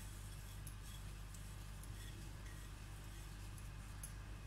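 Faint scratching and light ticking of fingers mixing dry ground spices on a plate, over a low steady hum.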